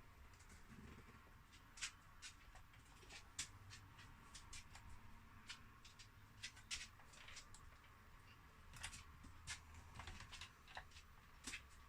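Faint, irregular light clicks and taps from a CD player's loading-tray mechanism being moved and handled by hand.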